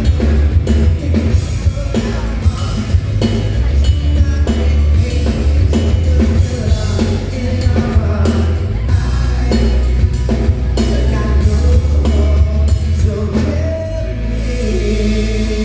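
Live rock band with drum kit and bass playing a song. The beat stops about fourteen seconds in, leaving a held, ringing chord as the ending.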